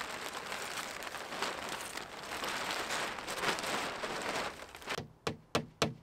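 Plastic tarpaulin rustling and crinkling as it is pulled and tucked over a roof, then a quick run of sharp clicks about a second before the end.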